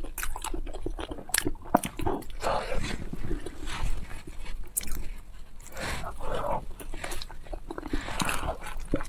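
A person biting and chewing sweet potato close to the microphone: a run of short wet mouth clicks and soft chewing sounds.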